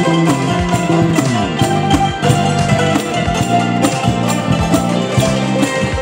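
An ensemble of Thai khim hammered dulcimers plays fast runs of struck notes with mallets, over low bass notes from an electric bass guitar.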